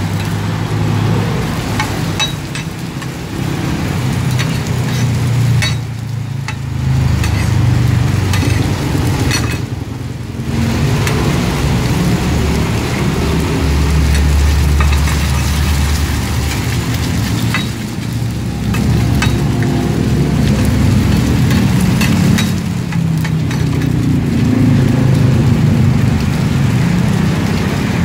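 Chive cakes frying in a wide pan of hot oil: continuous sizzling and crackling spatter over a steady low rumble.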